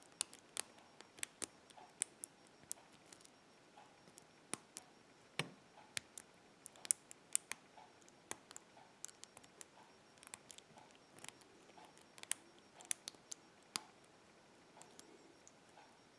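Lock pick and tension wrench working the pin stacks of a BEST small-format interchangeable-core padlock: a run of faint, irregular metallic clicks and ticks as the pins are lifted and set, picking toward the control shear line.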